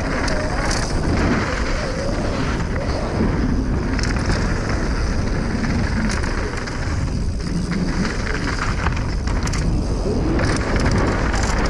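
Wind buffeting an action camera's microphone on a fast mountain-bike descent, mixed with the rumble of tyres on a dry dirt trail and sharp clatters from the bike over bumps.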